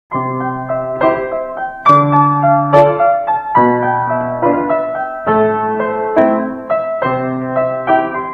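Solo piano music starting from silence: a slow melody over chords, with a new chord struck about once a second, each note ringing and fading.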